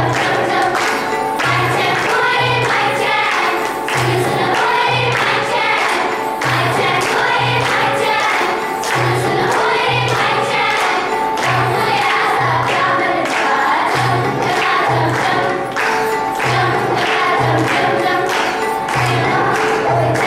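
Choir singing over backing music with a steady, evenly repeating low beat.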